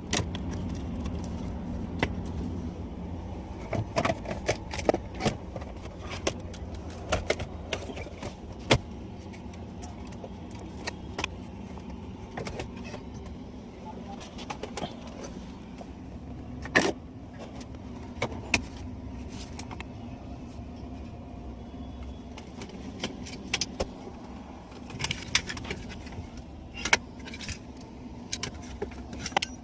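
Metal parts and hand tools clinking and tapping in irregular sharp clicks during car repair work, over a steady low hum.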